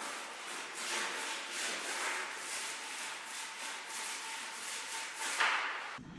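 Back-and-forth abrasive rubbing, like hand sanding, in steady strokes about two a second, with a louder stroke near the end before it cuts off.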